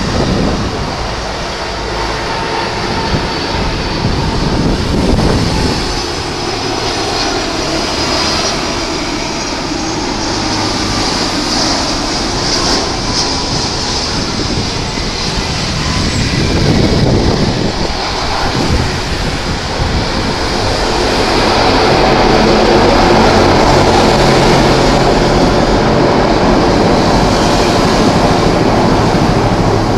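Twin jet engines of a Batik Air Airbus A330 airliner during landing: a continuous jet roar with a faint high whine as it comes in low and touches down. The roar grows louder about two-thirds of the way through, during the rollout on the runway.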